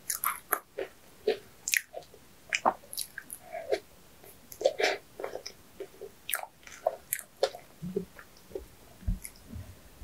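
Close-miked chewing of sweets: irregular wet smacks and clicks of a person's mouth as she bites and chews.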